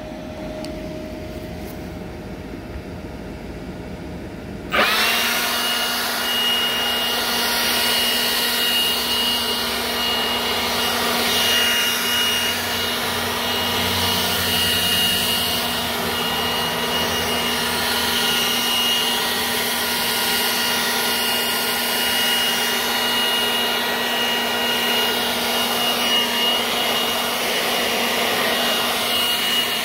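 Milwaukee M18 cordless leaf blower switched on about five seconds in, on its fast setting, then running steadily at full speed: a loud rush of air with an even high whine.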